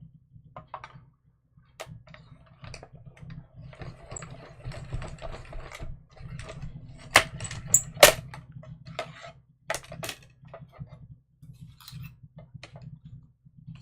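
Handling of cardstock, a metal die and plastic cutting plates while setting up a mini die-cutting machine: irregular clicks, taps and rustles, with two sharp snaps about seven and eight seconds in.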